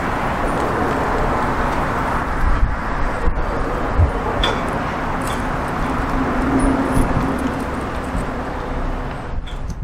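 Steady outdoor background noise, an even rumble and hiss, with a few faint short knocks.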